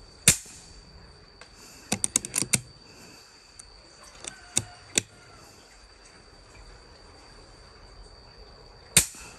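PCP air rifle shots: a sharp report just after the start and another near the end. In between come a quick run of lighter clicks about two seconds in and two more single clicks around four to five seconds.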